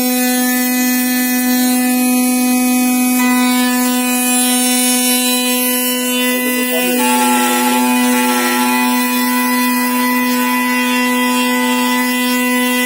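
High-speed CNC router spindle whining steadily while milling wood, a strong constant pitch with many overtones; about seven seconds in, the upper tones shift as the cutting load changes.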